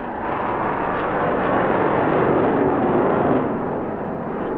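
Aircraft passing at night: a broad rushing engine roar that swells to its loudest past the middle, then eases off.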